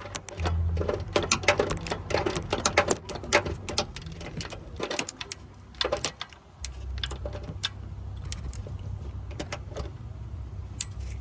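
Hand ratchet clicking in quick runs as a bolt is turned, with metal clinks of socket and tools. The clicks thin out about halfway through, leaving a low steady hum.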